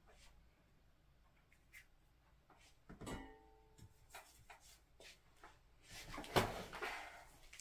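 Quiet handling sounds from ink painting: scattered light taps, a small clink with a short ring about three seconds in, and a brief rubbing sound of the brush a little after six seconds, the loudest moment.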